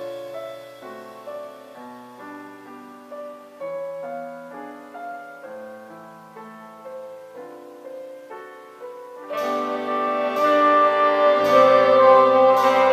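Jazz arrangement for saxophone quintet, piano, electric bass and drums, at its close. A piano plays a quiet solo line alone, then about nine seconds in the saxophones, bass and drums come in with louder held chords, marked by four hits about a second apart.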